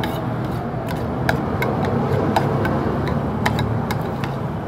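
Eating with a metal spoon from a plastic bowl: irregular sharp clicks, about two or three a second, over a steady low background hum.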